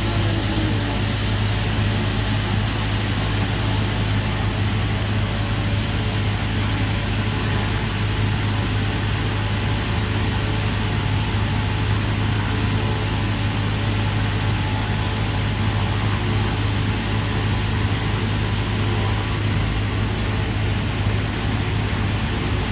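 TIG welding on a half-inch pipe joint: a steady low electrical hum under an even, constant hiss, without a break.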